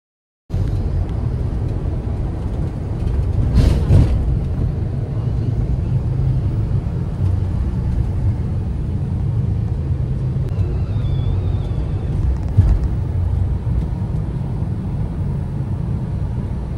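Steady low rumble of a moving vehicle, with a sharp knock about three and a half seconds in and a smaller one later.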